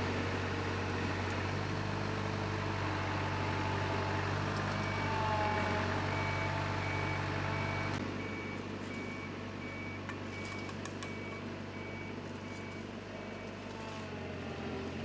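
Diesel engines of asphalt-paving machinery (a tandem roller and a tracked paver) running steadily. The engines are a little quieter after about eight seconds. A reversing alarm beeps about twice a second from about five seconds in until shortly before the end.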